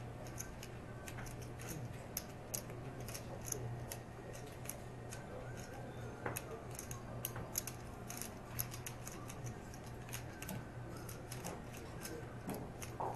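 Poker chips clicking together at the table: small, sharp, irregular clicks several times a second, over a low steady hum.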